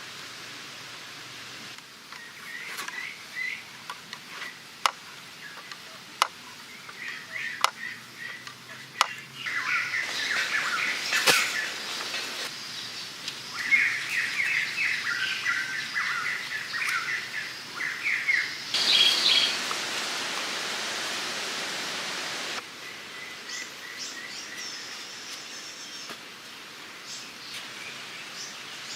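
Many short, high-pitched chirping calls in clusters, with sharp taps now and then, over a steady outdoor hiss that jumps in level abruptly a few times.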